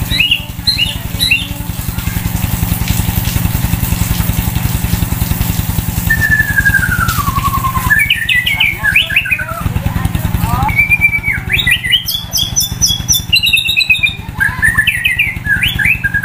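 White-rumped shama (murai batu) singing in bursts: short phrases, then after a few seconds' pause a long falling whistle followed by fast trills and varied notes. An engine runs steadily underneath.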